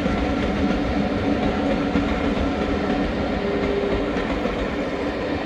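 Steam train's carriages rolling steadily along the rails.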